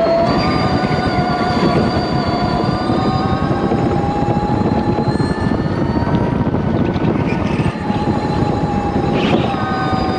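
Electric go-kart running at speed: a steady electric-motor whine whose pitch rises and falls a little with speed, over a rough rumble of tyres and track noise.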